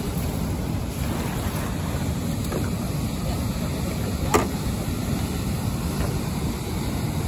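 Fast-flowing river water rushing steadily, with wind buffeting the microphone. A single sharp click sounds about four and a half seconds in.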